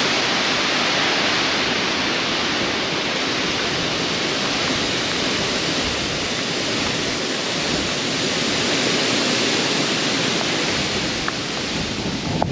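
Heavy rain falling, a steady even rush with no breaks.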